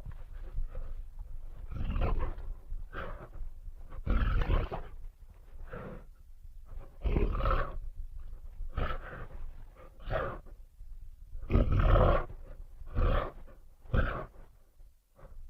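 Sound-effect roars voiced for Andrewsarchus, an extinct mammal: a series of about a dozen short, separate animal roars with brief gaps between them, some much louder than others.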